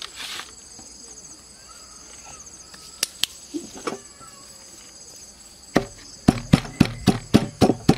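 Pestle pounding in a wooden mortar, starting about six seconds in as a quick, even beat of about four strikes a second. Insects chirp steadily underneath, and a couple of single knocks come midway.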